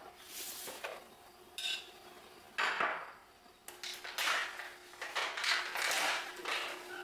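Dishes and cutlery being handled: a run of short clinks, knocks and scrapes, more frequent in the second half.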